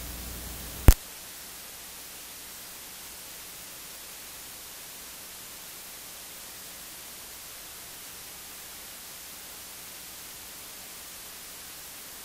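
Steady hiss of a recording's background noise with no music, broken by one sharp click about a second in; after the click the low hum drops away and only an even hiss remains.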